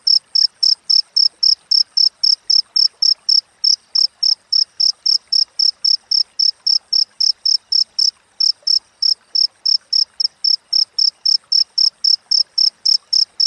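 A cricket chirping: short, high-pitched pulses repeated evenly at about four to five a second, skipping a beat a couple of times.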